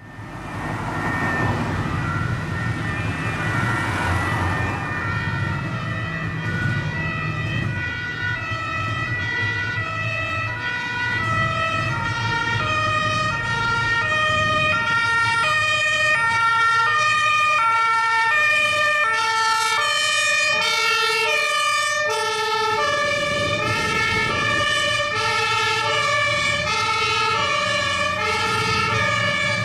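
Several German two-tone Martinshorn sirens on fire and rescue vehicles sounding together, each alternating between a high and a low note, their cycles out of step with one another. Under the first few seconds there is a vehicle engine's low rumble.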